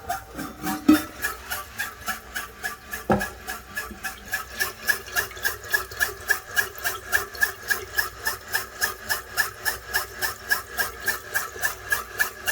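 Toilet making a strange rhythmic pulsing noise, about four pulses a second with a high tone in each. Before the pulsing settles into a steady beat, there are a couple of sharp knocks in the first three seconds.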